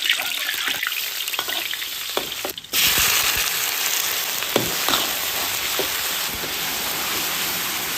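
Food stir-frying in hot oil in a pan: a steady loud sizzle with the scrape and knock of a spatula stirring. The sizzle drops out briefly about two and a half seconds in, then comes back louder.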